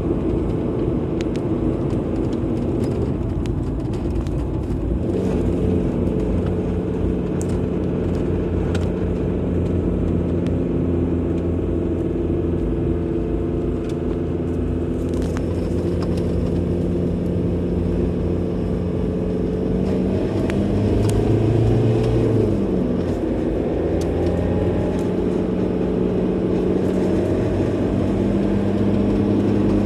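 A car driving: a steady engine hum over road and tyre noise. About two-thirds of the way through, the engine note rises and then drops back.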